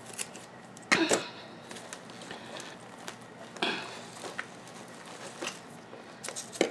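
A dense boat lily root ball being cut and torn apart, its roots and potting soil crackling and rustling in short sudden bursts. The loudest comes about a second in and another near four seconds, with smaller ones in between.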